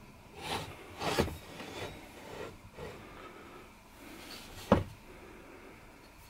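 Handling noises from a model Huxtable hot-air (Stirling) engine being turned around on a wooden workbench: a string of short scrapes and light knocks, then one sharp knock about three quarters of the way through as its metal base comes down on the wood.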